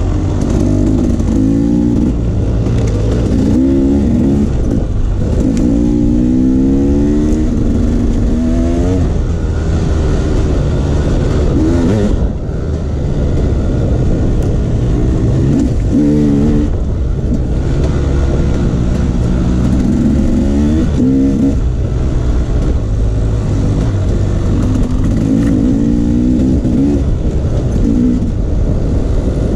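Enduro dirt bike engine on a trail ride, repeatedly accelerating: the note climbs in pitch for a second or two, then drops back as the throttle is rolled off or a gear changes. A steady low rumble runs underneath.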